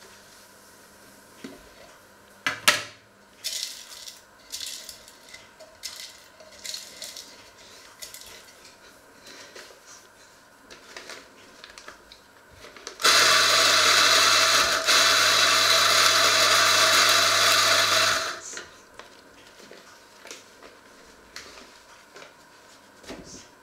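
Small electric motor appliance, most likely a coffee grinder, running steadily for about five seconds with a low hum, starting and stopping abruptly. Around it are small knocks and rustling from handling a paper coffee filter and cups.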